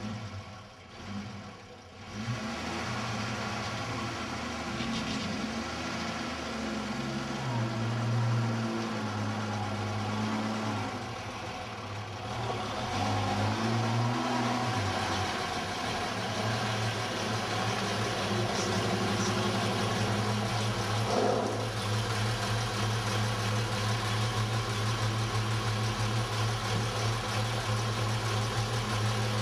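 Praga RN truck's engine running. Its pitch rises and falls several times about a third of the way in as the truck is driven forward, then it runs steadily at low speed.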